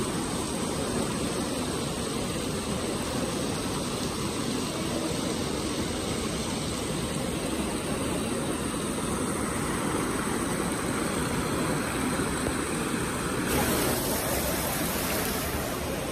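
Fountain water jets splashing into a shallow pool, a steady rushing hiss that turns brighter and more hissy near the end.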